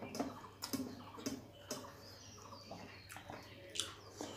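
Faint eating sounds: scattered soft clicks and smacks as fingers work rice on a steel plate, then lift a mouthful to the mouth near the end.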